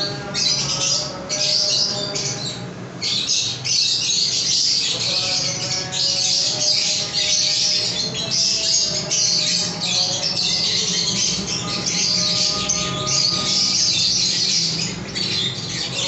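A roomful of caged lovebirds chattering and squawking, a dense, shrill chorus of many birds that barely pauses, with a steady low hum beneath.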